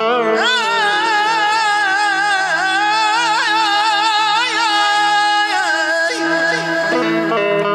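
A man singing a long, heavily ornamented mugham-style phrase with rapid trills, over instrumental accompaniment holding steady notes. The voice comes in just after the start and breaks off with a falling bend a little past halfway, leaving the accompaniment.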